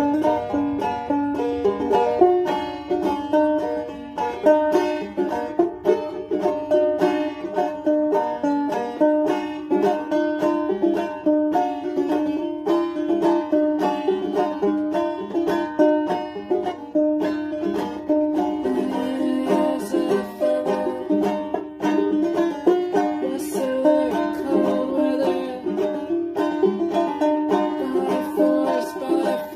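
Banjo played in a fast run of plucked notes over a steady low note.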